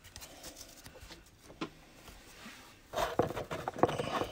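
Trading cards being handled: a single light tap about a second and a half in, then from about three seconds in a quick run of clicks and rustles as cards are squared and set onto a stack.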